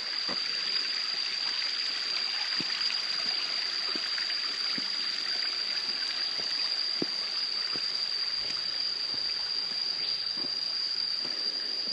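A forest stream running steadily, with one insect's unbroken high-pitched trill over it.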